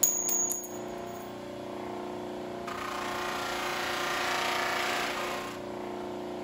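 Baldor 332B bench buffer running with a steady motor hum while a steel tube is polished on its cotton buffing wheel. A sharp metallic clink comes right at the start, and from about three seconds in a louder rushing hiss of the wheel against the tube rises and fades again shortly before the end.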